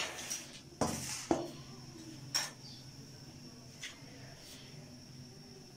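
A few short, light knocks and clinks of kitchen things being handled on a countertop: one right at the start, two about a second in, and single ones near the middle. A faint steady high whine runs beneath.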